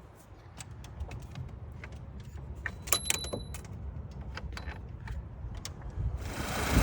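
Scattered clicks and a jingle of keys, then, about six seconds in, the turbocharged four-cylinder 2.0T engine of an Audi/VW starts up and its sound rises sharply. This engine has a fuel injector stuck open, dumping fuel and causing a misfire.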